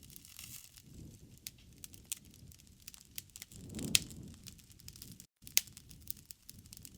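Wood fire crackling: scattered sharp snaps and pops over a soft low rumble of flame, with a louder pop about four seconds in. The sound cuts out for an instant just after five seconds.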